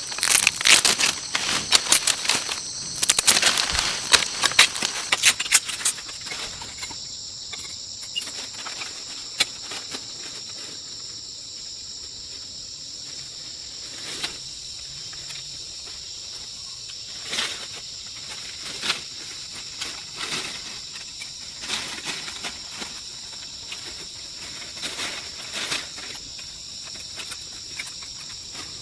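Insects calling in a steady high-pitched drone. Dense crackling clicks and rustling fill the first six seconds, and single sharp knocks come now and then after that.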